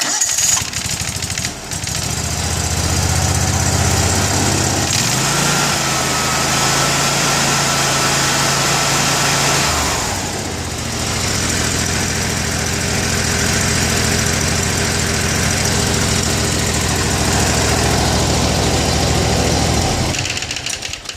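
Kawasaki FH680V 23 hp V-twin engine running on a mower, its speed stepping up about five seconds in and dropping back about ten seconds in, then holding a steady idle before stopping near the end. It idles evenly without loping, its plugged idle jet now cleared.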